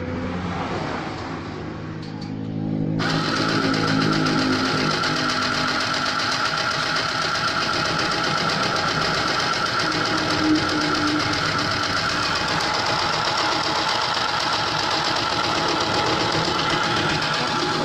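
Mini electric sewing machine running continuously, its small motor and needle stitching fabric at a steady speed. The sound grows brighter and louder about three seconds in and stops at the very end.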